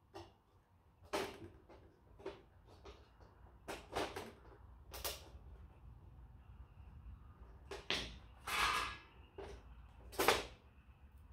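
Plastic and metal parts of a photocopier being handled and pulled apart by hand: scattered clicks and knocks, a brief scrape a little past eight seconds, and a sharp knock, the loudest, about ten seconds in.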